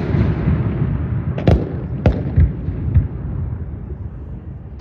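Display fireworks going off: a continuous low rumble of shell bursts and their echoes, with sharp bangs about one and a half and two seconds in and a few smaller ones after.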